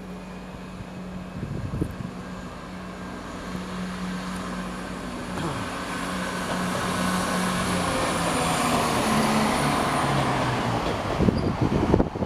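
Northern Class 170 Turbostar diesel multiple unit on the move, its underfloor diesel engines droning steadily while the wheel and running noise grows louder as it comes closer. Near the end, wind buffets the microphone.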